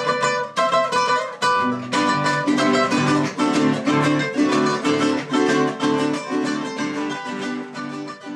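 Instrumental music on guitars and other plucked strings: a quick, strummed tune. Low bass notes join about two seconds in, and the music fades out near the end.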